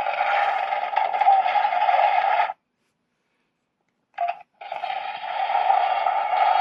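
Electronic sound clips played through a quarter-scale action figure's small built-in speaker, thin and tinny. One clip runs for about two and a half seconds and cuts off abruptly. A brief blip follows, then another clip starts about four and a half seconds in.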